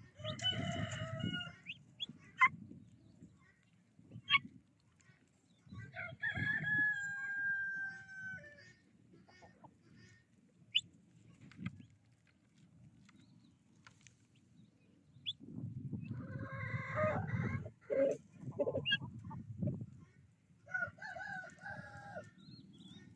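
A rooster crows once, one long call about six seconds in. Around it are bouts of harsh calls and clucking from the flock, with a few sharp short notes in between.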